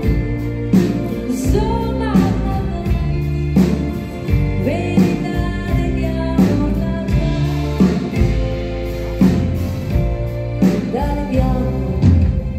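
Live pop ballad: a woman singing over a band, with acoustic guitar and keyboard chords and a steady, slow beat.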